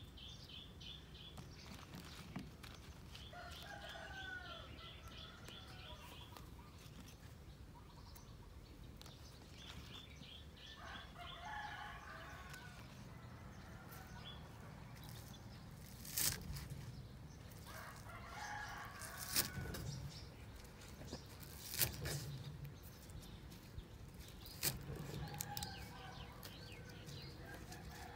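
Kitchen knife striking a wooden chopping board while slicing green onions, a handful of sharp chops a few seconds apart through the second half. Birds and chickens call in the background, with rapid chirping and wavering clucks in the first half.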